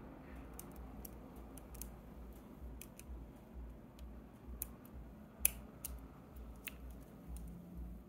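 Light, irregular metallic clicks and scrapes of a lock pick and tension wrench working the pins of a tiny Belwith rotary phone lock held in hand, with one sharper click about five and a half seconds in.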